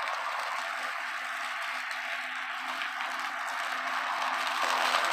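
A Ryobi 40V brushless cordless electric lawn mower with a 20-inch blade runs with a steady whir and hum as it cuts grass and leaves. It gets louder near the end as it comes closer.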